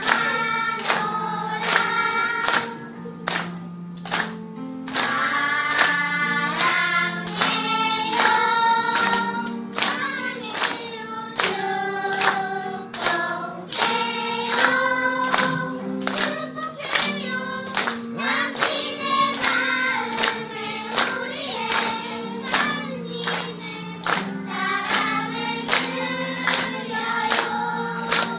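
A children's choir singing a song together while clapping their hands in a steady beat.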